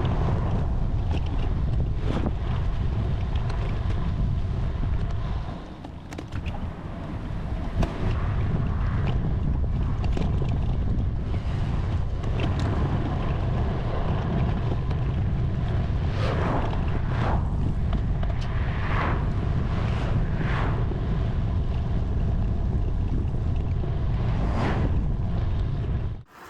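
Heavy wind buffeting the microphone of a camera on a moving bicycle, a dense low rumble that drops off briefly about six seconds in. A few short, higher sounds break through in the second half.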